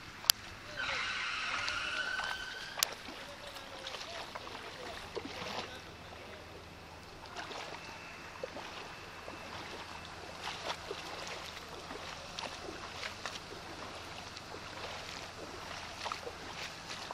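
Rain falling on a flooded street, with water sloshing and irregular small splashes and taps. A sharp click comes near the start, followed by a brief high tone lasting about a second and a half, and another click soon after.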